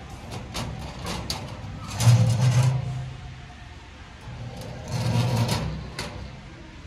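Stainless steel front door of a Jumbuck barbecue: a few light clicks of its latch handle, then a loud metallic clatter as the door is swung open about two seconds in, and another as it is shut again about five seconds in.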